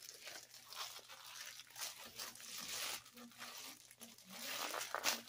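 A shipping package being torn open by hand: irregular rasping tears and crinkling of the packaging, in several bursts.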